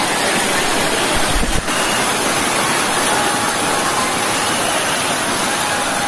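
Steady rush of falling and cascading water from a waterfall and the stream running over rocks. A brief low thump comes about a second and a half in.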